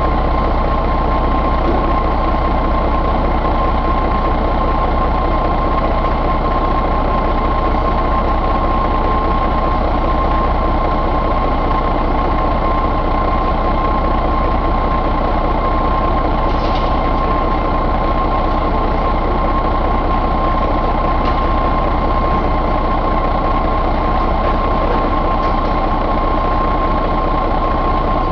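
Mercedes-Benz MBE4000 inline-six diesel engine running steadily at an even speed, with a constant high whine over the engine note.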